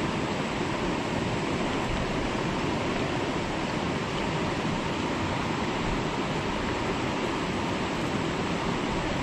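Steady rush of fast-flowing river water over rocks, an even hiss with no breaks.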